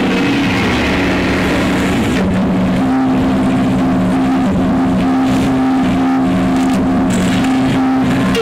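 Recorded backing track for the mime playing a steady low drone held on two pitches, with a short break about two seconds in.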